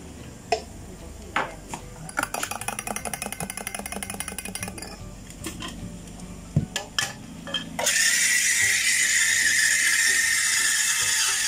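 Drink-making clatter: cups and utensils knocking, then a spoon stirring quickly in a cup, about ten clinks a second for two or three seconds. At about eight seconds a loud, steady rushing noise starts suddenly and runs on.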